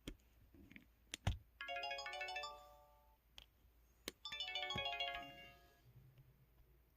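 MS500 flip phone's 'Fold.4' folder sound, the tune it plays as the flip is opened or closed: a fast run of bright electronic chime notes, heard twice. Each run comes just after a sharp click.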